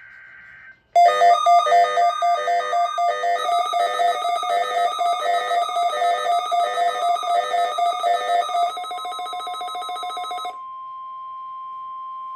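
Loud electronic alert tones, a rapid pulsing pattern of several notes, start about a second in and quicken near the end. They give way to the steady single-pitch 1050 Hz NOAA Weather Radio warning alarm tone, sounded for its weekly test.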